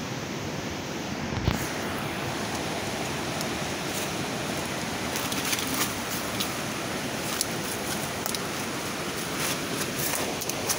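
Steady rushing hiss, with a phone microphone rubbing and rustling as it is carried through forest undergrowth: many small scattered clicks and one knock about a second and a half in.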